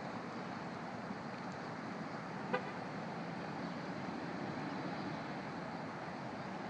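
Steady outdoor background noise like distant road traffic, with one very short pitched toot about two and a half seconds in.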